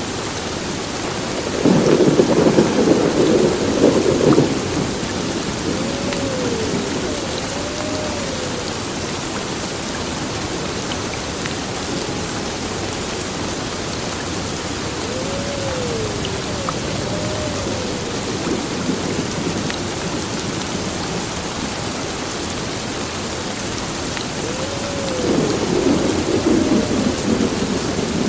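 Heavy rain pouring steadily on a building, with two long rolls of thunder: one a couple of seconds in and another near the end.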